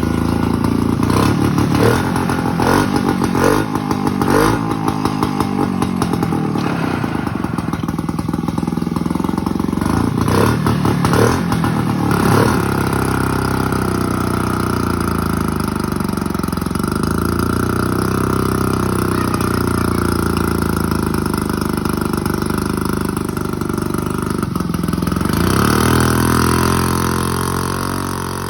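Single-cylinder engine of a freshly restored Rabbit P306 portable fire pump running. For the first dozen seconds it is blipped up and down repeatedly, then it runs more steadily with slow rises and falls in speed, picking up again near the end.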